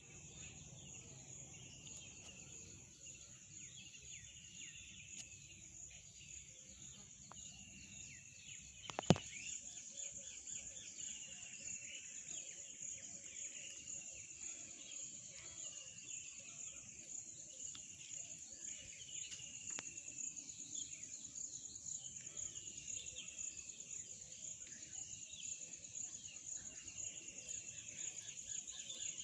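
A steady, high-pitched insect drone like a cricket chorus, with a bird repeating a short falling call every second or two. A single sharp click about nine seconds in.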